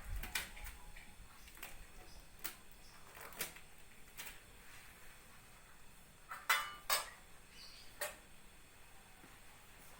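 Scattered clicks and knocks of medical equipment being gathered up and put away, hard items set down and clinking against one another, with the two loudest knocks close together about six and a half seconds in.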